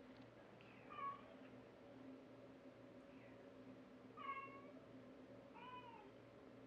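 Brown tabby kitten meowing three times with short, high mews: about a second in, around four seconds, and near six seconds, the last one lower and arching in pitch.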